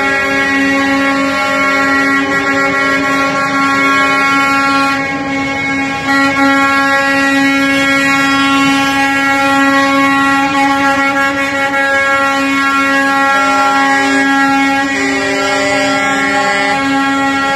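Air horns of a convoy of semi-trucks blowing together in a long, unbroken chord, several horns at once with the mix of pitches changing slightly as trucks pass.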